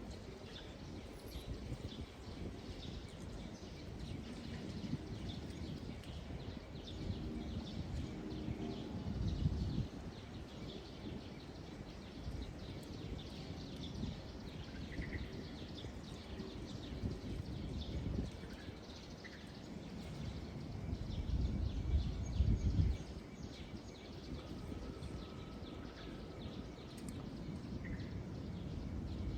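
Tropical evening outdoor ambience: a steady low rumble that swells up twice, with faint, scattered bird chirps over it.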